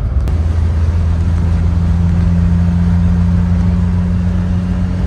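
Mazda 1800's four-cylinder engine running steadily as the car drives along, heard from inside the cabin over road noise. The engine note settles into a steady hum about a second in.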